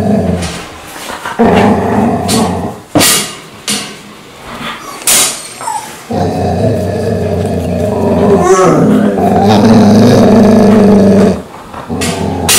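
Golden retriever making long, drawn-out growling vocalizations to wake its owner. There are two of them: a short one about a second and a half in, and a steady one about five seconds long from the middle that cuts off suddenly, while the dog holds a vacuum cleaner hose in its mouth.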